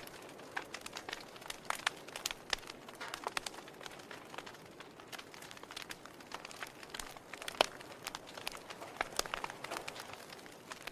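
Wood fire crackling: irregular snaps and pops over a soft hiss, with one sharper pop about two-thirds of the way through.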